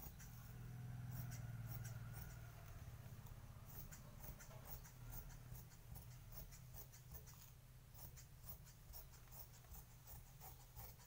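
Large tailoring scissors cutting through blouse fabric, a faint run of short, irregular snips, over a steady low hum.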